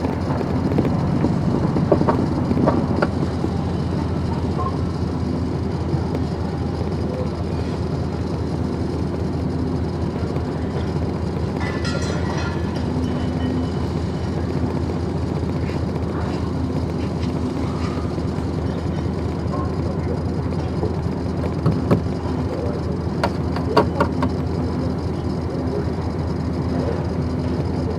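Vehicle engine running steadily at low speed, a constant low rumble, with a few short metallic clicks and rattles near the middle and toward the end.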